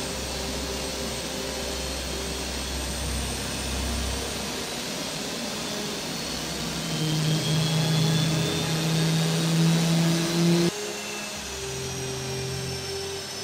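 Fighter jet engines running on the ground during start-up: a steady low hum with a high whine that rises in pitch in the middle. The sound changes suddenly near the end.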